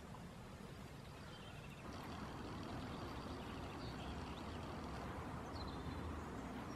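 Faint outdoor ambience: a low steady rumble like light wind on the microphone, with a few faint bird chirps. It gets a little louder about two seconds in.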